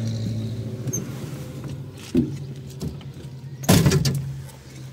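Car engine idling with a steady low hum, a small knock about two seconds in, then a car door slamming shut a little before four seconds in.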